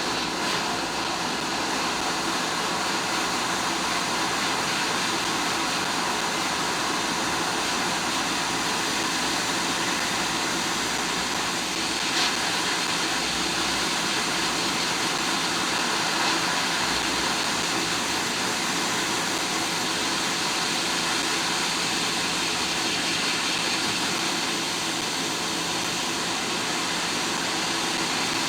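Steady rush of air from a hot air rework station blowing on the board, with no change in pitch or level.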